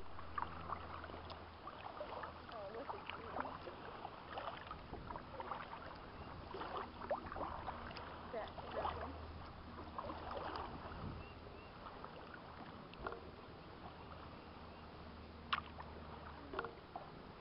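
Kayak paddling: the paddle blades dipping and splashing in lake water, with irregular drips and small clicks. A steady low hum runs underneath.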